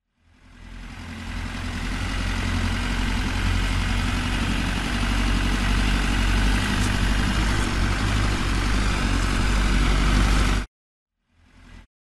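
Tractor engine sound running steadily with a deep rumble, building up over the first couple of seconds and cutting off suddenly near the end, followed by a brief quieter snatch of the same engine.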